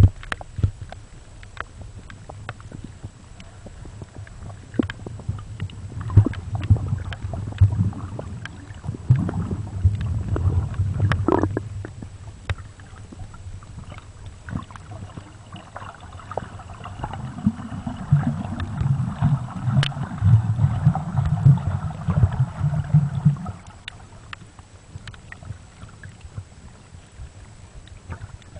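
Underwater sound over a coral reef: scattered sharp clicks and crackles over a low rumble of water moving around the camera. In the second half a pulsing low throb with a hiss above it runs for about six seconds, then stops.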